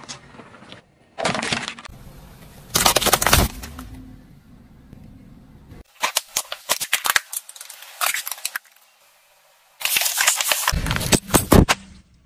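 A car tyre rolling over brittle plastic toys and crushing them: bursts of sharp cracks and crunches, the busiest about six seconds in and again near the end.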